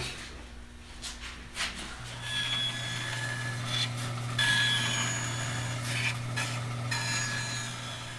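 Woodworking power tool working on wood: a few knocks, then the motor starts a steady hum about two seconds in, with a higher whine that shifts as it cuts.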